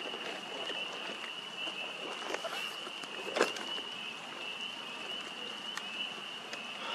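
Steady high-pitched chorus of calling frogs or insects, with a sharp click about three and a half seconds in and a few fainter clicks.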